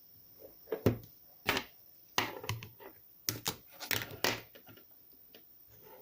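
A string of irregular knocks and clicks, about seven in the first four and a half seconds, the loudest about a second in, followed by quiet room sound.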